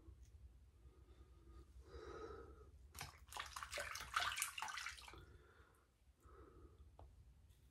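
Barbasol shaving cream hissing out of an aerosol can for about two seconds, with a wet crackle as the foam comes out, starting about three seconds in.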